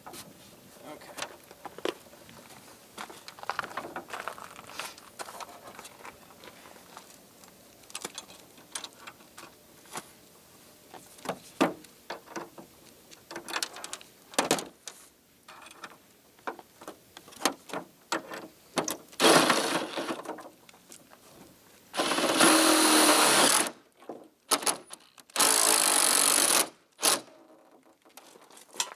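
Scattered clicks and knocks, then a cordless drill running in two steady bursts of about a second and a half each, near the end.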